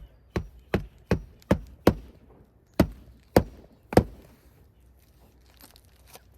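Hammer driving roofing nails to fasten a shingle back down: six quick strikes, then three slower, heavier blows.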